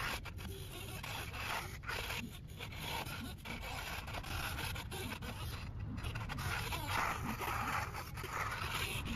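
Steady scraping and grinding from an RC wheel loader's electric drive and bucket working dirt, with short breaks in the noise.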